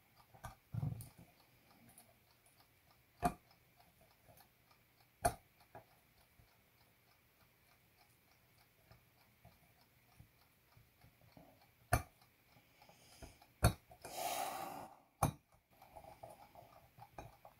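A jeweler's screwdriver working a screw on the domed bell of a key-wound alarm clock: scattered sharp clicks and small knocks, a few seconds apart, with a soft thump near the start and a brief rustle about 14 seconds in.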